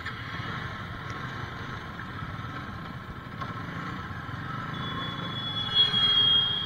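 Avenger motorcycle riding at road speed, its engine running under a steady rush of wind and road noise. A thin, steady high tone joins about two-thirds of the way in.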